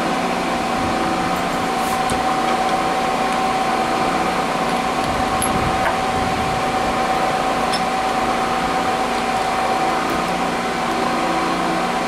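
Milling machine running steadily with a constant whine. A few faint clicks come through as steel parts are handled in the vise.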